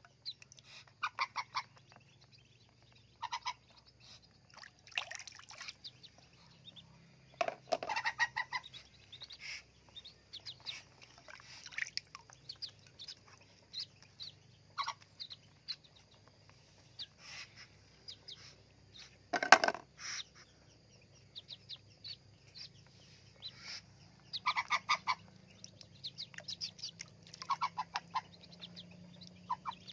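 Domestic fowl calling, a string of short calls each made of rapid repeated notes, heard on and off. About two-thirds of the way through comes a single sudden loud thump, the loudest sound.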